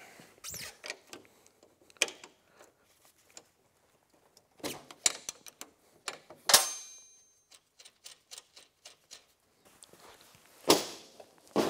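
Metal tools and parts clicking and clanking while working on a snowmobile's rear suspension: scattered sharp clicks, with one loud clank about six and a half seconds in that rings briefly, and another loud knock near the end.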